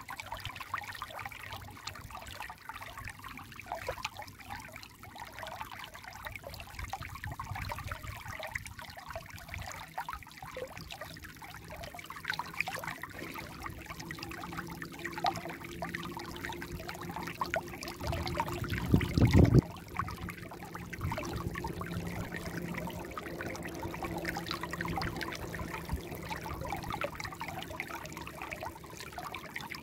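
Shallow stream trickling and splashing over stones in a continuous flow of small gurgles and drips. About two-thirds of the way through, a brief low rumble lasting over a second stands out above the water.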